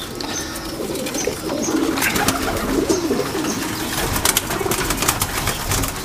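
Domestic pigeons cooing in a loft, with a run of sharp clicks and rustles through the middle.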